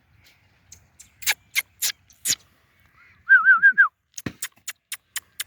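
A short warbling whistle with about four quick wobbles in pitch, dropping at the end, about halfway through. Sharp clicks come before it and a quicker run of clicks follows it.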